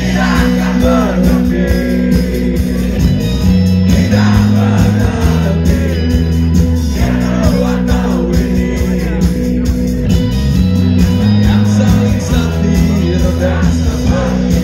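Rock band playing live through a stage PA: loud sustained bass, a steady drumbeat and electric guitars, with a singer's voice over them.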